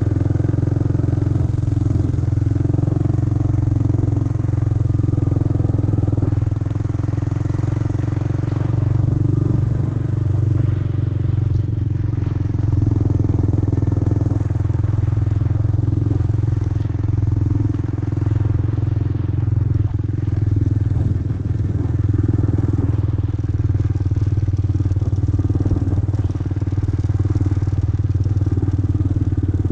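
Four-wheeler (ATV) engine running steadily, with an even drone that holds its pitch.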